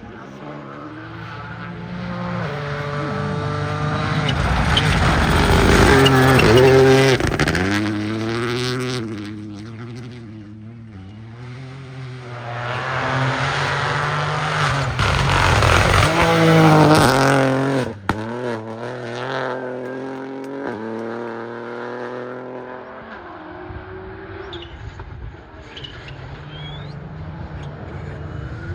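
Rally cars at speed, their engines revving up and dropping back through gear changes, with two loud pass-bys about six and sixteen seconds in.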